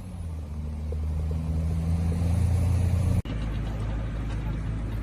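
A large engine running steadily with a low hum that grows louder, then an abrupt cut about three seconds in to a different steady low rumble.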